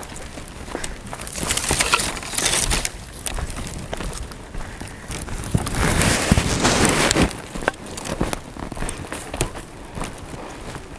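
Footsteps crunching and rustling through dry grass and brush, with crackling twigs. It swells twice: about two seconds in, and again from about six to seven seconds.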